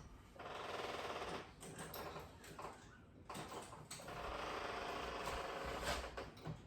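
Small electric motor running in two buzzing bursts, one of about a second near the start and a longer one of about two seconds in the second half, with quieter handling noise between.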